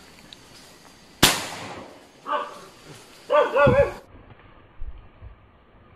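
A single gunshot, a sharp crack with a short decaying tail about a second in. It is followed by animal cries, a short one about a second later and a longer wavering one soon after.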